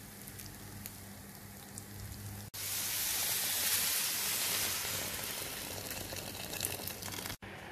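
Yellow grains in a hot pan faintly sizzling over a low hum, then after an abrupt cut about two and a half seconds in, a loud steady rush as liquid is poured over the grains. The pouring stops in another abrupt cut just before the end.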